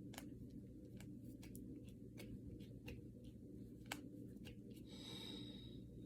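Finger and knuckle joints cracking: about ten small, sharp pops at irregular intervals, the clearest about four seconds in, over a steady low hum. A brief soft hiss comes near the end.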